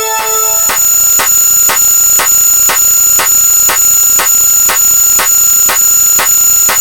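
Electronic sound effects: steady high-pitched synthetic tones with a sharp tick repeating about three times a second, like an electronic alarm.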